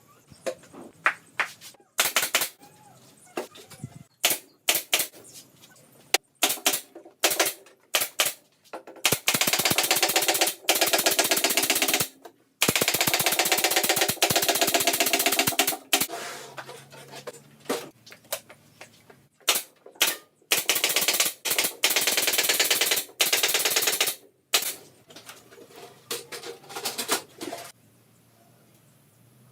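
An impact driver running in bursts of about three seconds, its rapid hammering driving screws into the cabinet's wooden panels. Sharp single clicks and knocks fall between the bursts.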